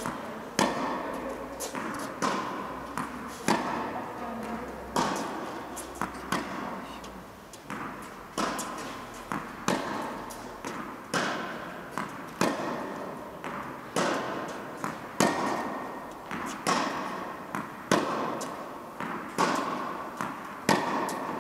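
Tennis rally: a steady series of sharp knocks as the ball is struck with rackets and bounces on the court, each hit echoing around an indoor tennis hall.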